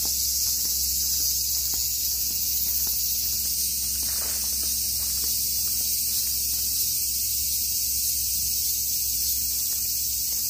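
A steady, high-pitched chorus of insects, with faint footsteps on a paved path.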